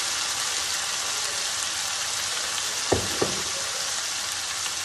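Rainbow carrots sizzling steadily in a hot pan with a just-added honey and apple cider vinegar glaze, with two sharp knocks close together about three seconds in.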